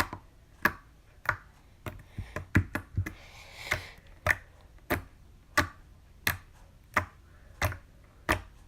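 Homemade slime being poked over and over, giving a sharp pop about every two-thirds of a second, with a brief softer squish a little past the middle.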